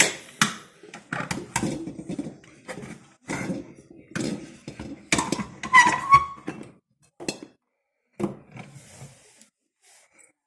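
Metal tools and parts being handled: an irregular run of clinks, taps and knocks, busiest around the middle and thinning out near the end.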